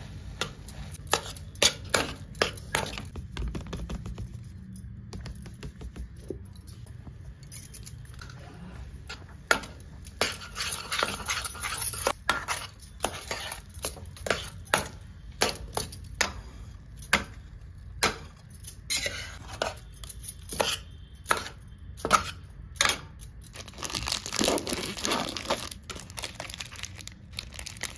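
A steel spatula scraping and knocking against a stainless steel kadhai as it stirs crumbled paneer with sugar, in quick irregular strokes. Near the end, a Bourbon biscuit packet's plastic wrapper crinkling as it is torn open.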